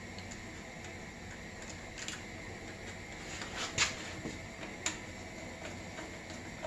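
A few faint clicks and light knocks from hands working wires and a screwdriver inside a sheet-metal motor-starter box, the sharpest click about four seconds in, over a steady faint hiss.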